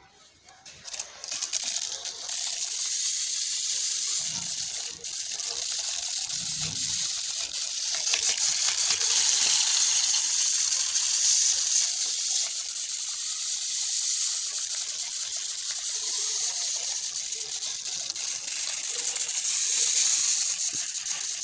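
Homemade pressure sprayer made from a plastic soda bottle spraying a continuous mist of water: a steady high hiss that starts about a second in, with a brief break around five seconds in.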